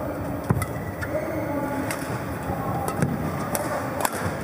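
Badminton rally: rackets striking the shuttlecock in sharp cracks, about one every second or so, the players trading shots.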